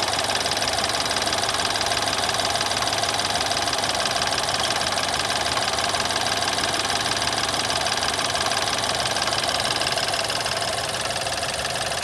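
BMW F11 528i Touring's engine running with a steady diesel-like rattling clatter, the abnormal engine noise its owner reports at start-up.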